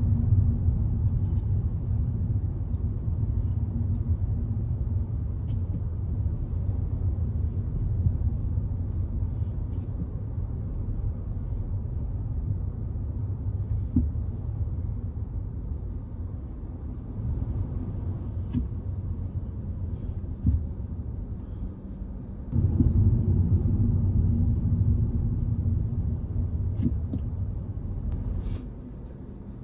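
Car on the move: a steady low rumble of engine and road noise. It dips about two-thirds of the way through, comes back louder, and falls away again just before the end.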